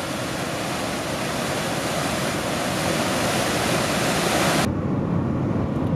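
Huka Falls, the Waikato River pouring through a narrow rock gorge: a loud, steady rush of water with no break. About four and a half seconds in it cuts off suddenly, leaving a lower, steady rumble of a moving vehicle.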